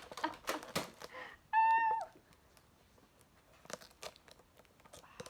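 Scattered clicks, knocks and rustling of a Nerf battle, blasters being handled and foam darts landing, with one short high-pitched tone about one and a half seconds in that holds for half a second and then drops away.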